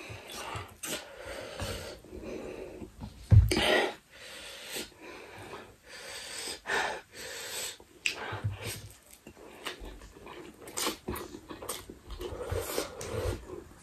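Instant noodles being slurped and chewed close to the microphone, with breaths between mouthfuls from the heat of extra-spicy Buldak ramen. Irregular short bursts of noise, the loudest about three and a half seconds in.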